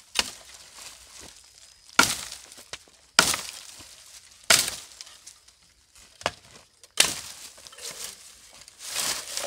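Hand-tool blows chopping green catingueira wood: about five hard, sharp strikes at uneven gaps of one to two and a half seconds, with lighter knocks and rustling between.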